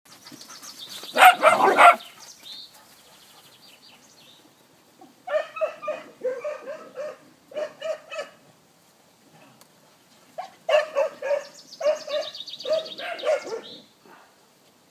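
Dogs barking at play, in quick runs of short repeated barks with pauses between, after a loud burst of noise about a second in.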